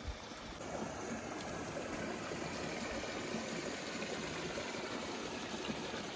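Hillside stream running, a steady rush of water.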